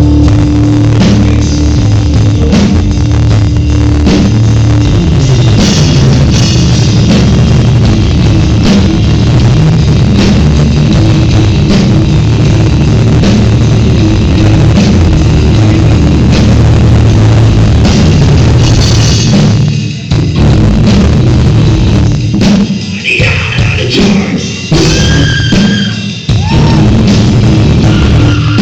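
Rock band playing loud at a sound check, with drum kit and guitar, breaking off for several short stops about two thirds of the way through.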